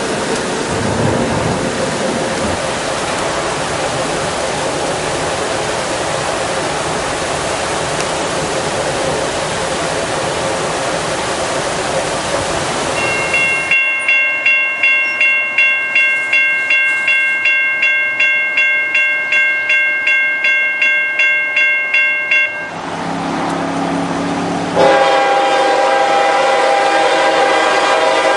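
Steady road and rain noise from a moving car, then a railroad grade-crossing bell ringing about two and a half strokes a second. Near the end a CSX freight locomotive's air horn sounds, loud and steady.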